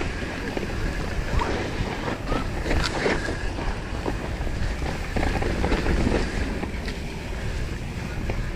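Wind rushing over the camera microphone of a mountain bike descending a dirt trail, with tyres on the dirt and scattered clicks and rattles from the bike.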